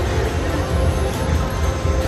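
AGS Mega Diamond slot machine playing its music and reel sounds as the reels stop on a spin, over the steady low din of a casino floor.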